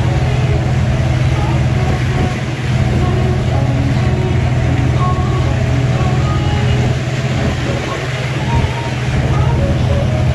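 Boat engine running steadily under way, a loud, even, low drone.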